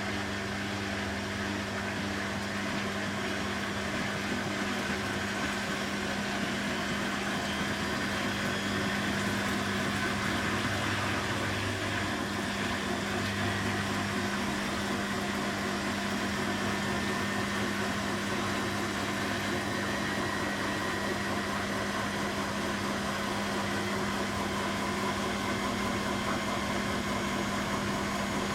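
Beko WTB841R2W washing machine running, a steady mechanical hum with a faint whine that climbs slowly in pitch partway through.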